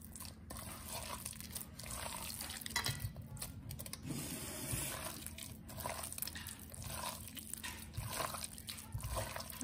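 Hands squishing and kneading a wet mix of raw mutton pieces, egg, chopped onion, garlic and spice powders in a steel pot, with many small irregular squelches.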